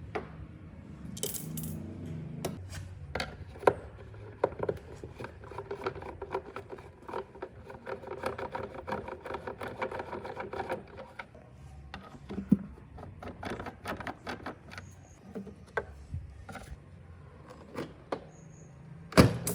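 Hand tools and small plastic and metal parts of a robot vacuum clicking, tapping and scraping as it is worked on by hand, with a stretch of rapid ticking in the middle.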